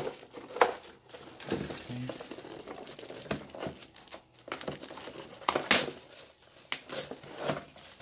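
Plastic wrap crinkling and a cardboard box rustling and scraping as a plastic-wrapped blender cup is worked out of its packaging, with a few sharper clicks, the loudest about half a second in and again near six seconds.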